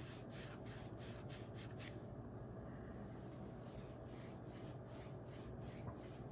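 Steel wool rubbed back and forth on the tenon of a tobacco pipe's stem to polish it. Faint, quick scratchy strokes, about four or five a second, which pause briefly a little after two seconds in and then resume.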